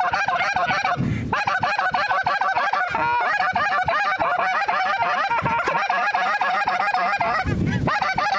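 A flock of geese honking, many birds calling over each other in a dense, continuous chorus.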